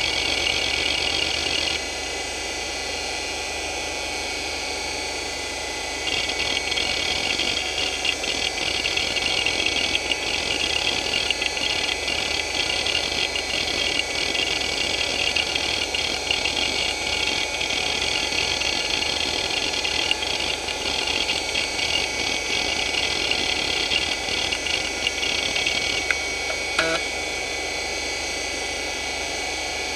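Hitachi DK225A-14 2.5-inch two-platter hard drive spinning with a steady high whine while its heads are driven back and forth by the hdmotion test. From about six seconds in the heads seek in rapid irregular clicking chatter; a couple of sharper clicks come near the end, after which only the spinning whine remains.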